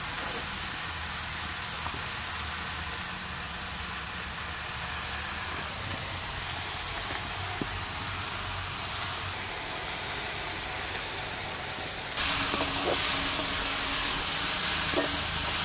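Steady background hiss with a low hum and a few faint clicks. About twelve seconds in it jumps suddenly to a louder, brighter hiss.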